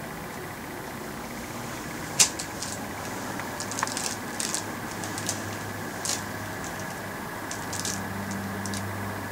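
A run of sharp clicks and light rustles over a steady background hiss, the loudest click about two seconds in and smaller ones scattered through the rest.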